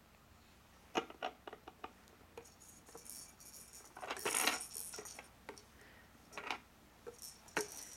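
Hard plastic baby toys on a Bumbo seat's play tray clicking and clattering as they are handled: a run of light, sharp clicks, then a longer, louder clatter about four seconds in, and a few more clicks near the end.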